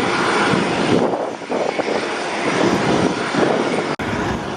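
Loud rushing engine noise of an aircraft flying at the airshow, swelling in and then holding steady. There is a sharp click with a momentary dropout about four seconds in.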